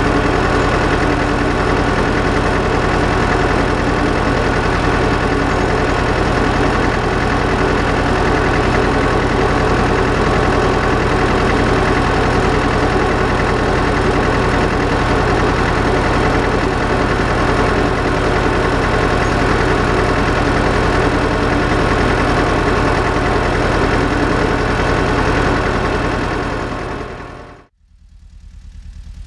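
Tractor engine running at a steady speed, heard close up while it pulls a field roller over the soil. About 27 seconds in it fades out, and a much fainter low engine sound follows.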